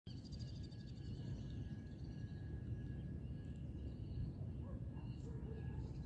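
Outdoor ambience: a steady low rumble of wind on the microphone, with birds chirping faintly in the background and a rapid high trill in the first second.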